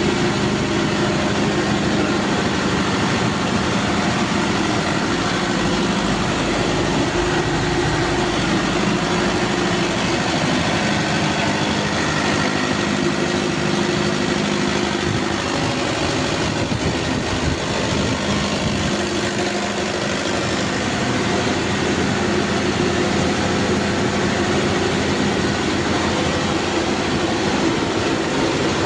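Cummins KTA50 V16 turbo-diesel engine running steadily at a constant speed, with a loud, even drone.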